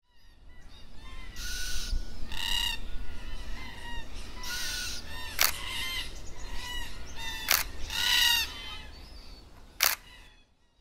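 Birds calling: about five loud, harsh calls with smaller chirps between them, and three sharp clicks in the second half.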